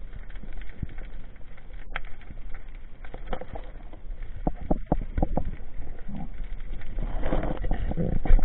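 Underwater sound while diving among kelp and rocks: irregular knocks and clicks over a low rumble of moving water, thickening into a denser rush of noise about seven seconds in.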